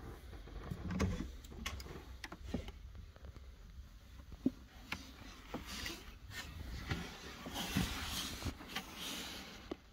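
A wooden-framed cabin window being handled and opened: scattered clicks and knocks from the latch and frame, with a heavier thump about a second in. Near the end comes a hiss of rushing noise lasting about two seconds.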